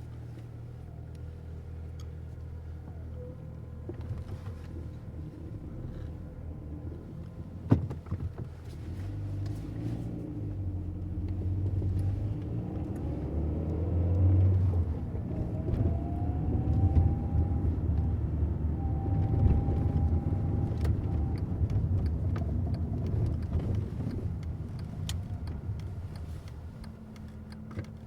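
Car engine running at low revs, with a sharp click about eight seconds in. The car then pulls away, its engine note climbing in pitch as it accelerates, and eases off near the end.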